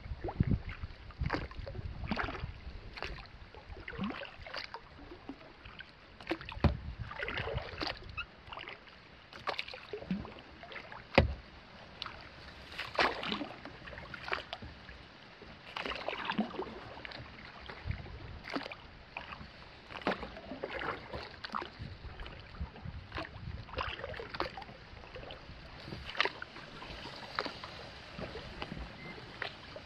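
Kayak paddle strokes: the paddle blades dipping and pulling through calm water, splashing and dripping about once a second, with a single sharp knock about eleven seconds in.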